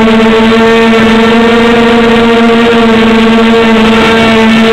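Small 250 mm quadcopter's electric motors and propellers buzzing loudly at a steady pitch while hovering, the pitch wavering briefly near the end.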